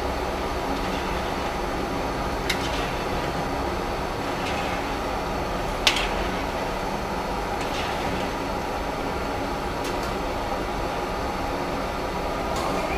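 Steady roar of a commercial gas wok burner heating a wok of oil, with a few sharp clinks of metal utensils, the loudest about six seconds in.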